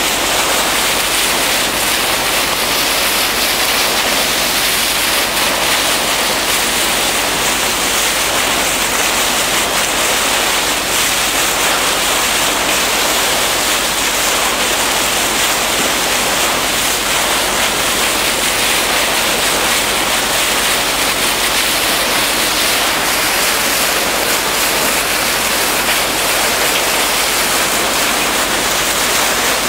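Steady rushing hiss of sea water churned by a ship's bow cutting through the water, with no break or change.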